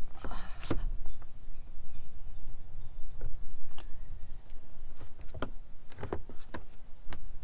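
Wind buffeting the microphone as a low, unsteady rumble, with a few light clicks and knocks from handling a rooftop solar panel, its mounts and its cable.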